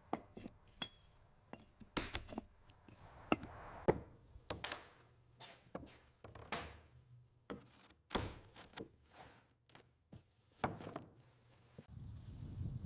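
Irregular series of sharp wooden knocks and thunks, about one or two a second: hand tools striking timber.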